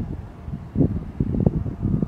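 Wind buffeting the microphone in uneven gusts, a low rumbling noise that swells about a second in.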